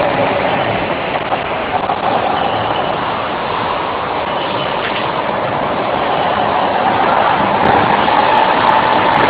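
Go-kart engines running on an indoor track, a loud steady drone with a whine that rises slightly in pitch near the end as a kart speeds up or comes closer.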